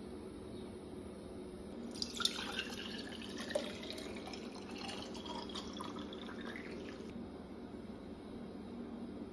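Fresh green juice poured from a jug into a tall glass jar, splashing and gurgling as the jar fills. It starts about two seconds in and stops about seven seconds in.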